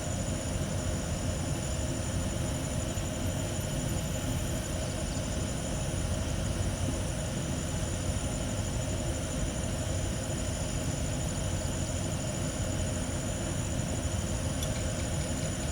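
Steady outdoor night ambience: a continuous high insect trill over a low, even rumble, with no change throughout.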